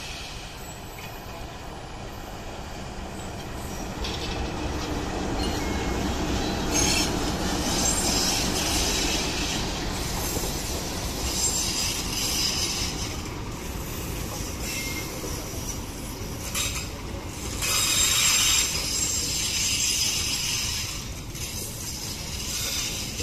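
Diesel-hauled passenger train passing close by: the locomotive's engine rumble builds as it comes up, then the coaches run past with wheel noise on the rails and recurring spells of high wheel squeal.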